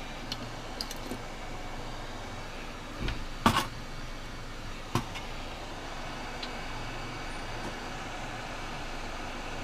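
A steady mechanical whir, with a few sharp taps and clicks: the loudest about three and a half seconds in and another at about five seconds.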